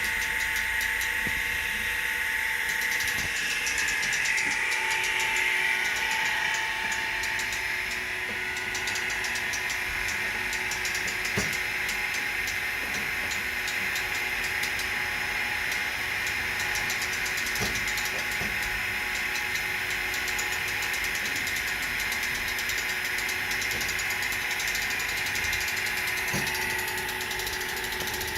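Mini crane running steadily with a high whine and a lower hum held at a constant pitch, with a few faint knocks along the way.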